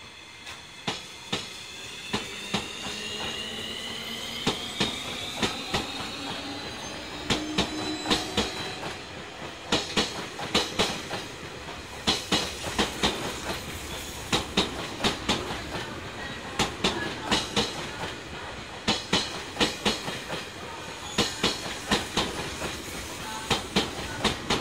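Electric limited express train accelerating away from a station. A rising electric whine from its drive starts in the first few seconds. Then the clickety-clack of its wheels over rail joints comes ever quicker as it picks up speed.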